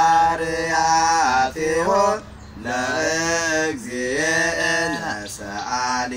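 Men's voices singing an unaccompanied, chant-like song in long held phrases, the pitch stepping and sliding between notes, with short breaks between phrases.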